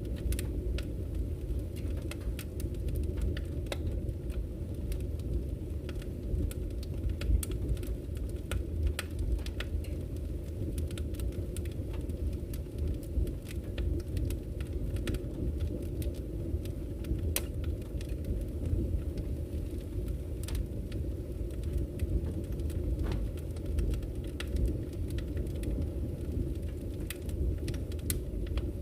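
Wood burning in a fireplace: a steady low rumble with irregular sharp crackles and pops from the logs.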